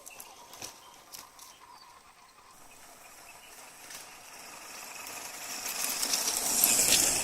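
An off-road vehicle drives past, heard as a rush of noise that builds from about halfway through to a peak near the end.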